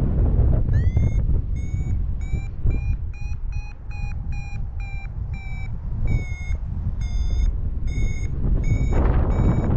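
Paragliding variometer giving its climb tone: short pitched beeps, about three a second at first, then slowing to about two a second and dropping in pitch after the middle, the sign of climbing in a thermal as the lift eases off. Wind rushes over the microphone underneath.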